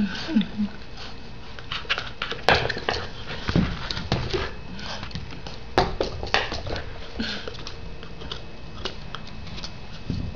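Black Labrador retriever puppy playing with a rubber duck toy on a tile floor: irregular clicks, knocks and scuffles of teeth, claws and toy against the tiles.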